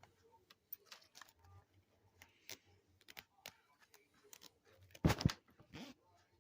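Handling noises from a plush backpack being turned over and searched through by hand: scattered small clicks and rustles, with a louder bump about five seconds in and a softer one just after.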